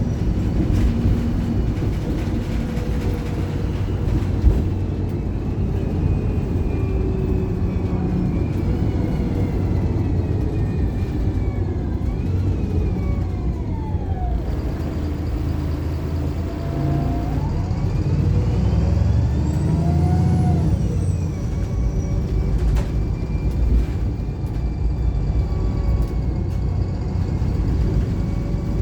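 Diesel engine and drivetrain of a Wright Pulsar single-deck bus heard from inside while it is under way, a steady low rumble. Drivetrain whines rise and fall in pitch as the bus accelerates and changes gear, with a couple of brief clicks.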